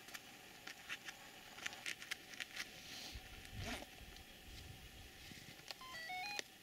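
Faint handling clicks and knocks from a handheld camcorder being held and zoomed, with a brief rustle a little past halfway. Near the end comes a short run of electronic beeps stepping up in pitch.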